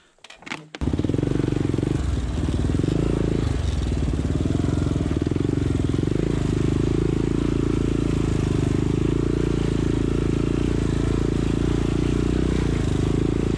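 ATV engine running steadily while under way, starting abruptly about a second in, with a noisy rush of riding over it.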